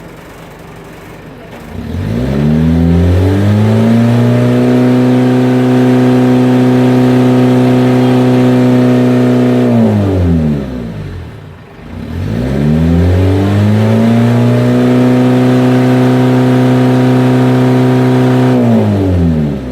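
Mitsubishi L300 diesel engine revved up hard twice, each time held at a steady high speed for about eight seconds before dropping back to idle, during a free-revving exhaust smoke check.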